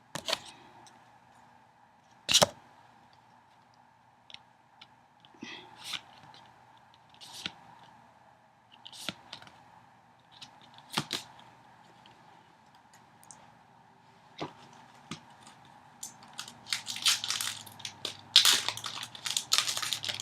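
Yu-Gi-Oh! trading cards being handled and flipped one at a time, a short snap or slide every second or two. Near the end comes a long spell of crinkling from a foil booster pack wrapper.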